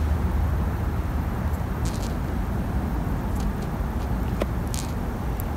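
Steady low background rumble, with a few faint light clicks as metal multimeter probe tips touch the ends of a festoon bulb.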